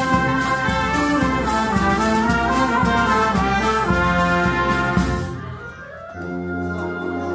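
Brass band playing in the street: trumpets, trombones and tuba over bass drum and cymbal strokes about twice a second. About five seconds in, the drum and cymbals stop and the brass carries on more softly.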